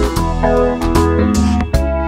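Background music: a keyboard-and-guitar tune with a steady beat, with no machine sound standing out.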